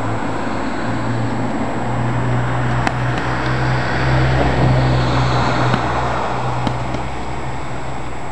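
Steady low rumble of a passing road vehicle, swelling to its loudest about halfway through and then easing off. A few light thuds of boxing gloves land now and then.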